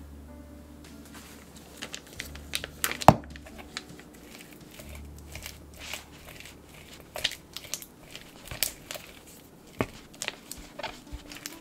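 A silicone spatula mashing and smearing soft cream cheese in a glass bowl, with irregular wet squishes and small clicks and scrapes against the glass. A sharp knock about three seconds in is the loudest sound.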